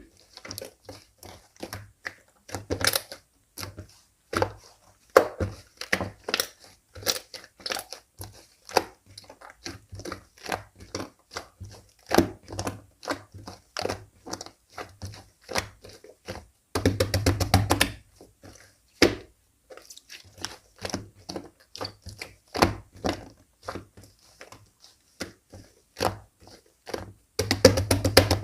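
Slime being pressed, folded and squeezed by hand: a steady run of wet clicks and crackles as air pockets pop, with a burst of rapid popping about 17 seconds in and another near the end.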